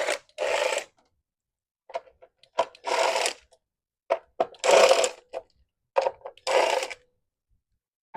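Ratchet spinning out the 10 mm coil-pack bolts on a Chrysler 3.5 V6 in short bursts of rapid clicking, four main runs about every two seconds with single clicks between.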